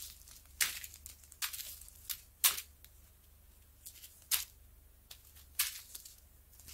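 Small plastic zip-lock bags of diamond-painting drills crinkling as they are handled and sorted: a string of short, separate rustles, with a brief lull midway.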